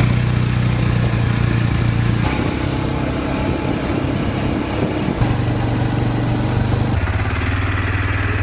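Four-wheeler (ATV) engine running under way, a steady low hum whose note shifts a few times: at about 2, 5 and 7 seconds in.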